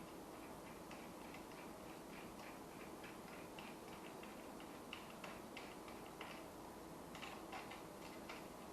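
Faint light metallic clicking, roughly three ticks a second and unevenly spaced, as an Allen key turns the bolts into a motorcycle handlebar clamp.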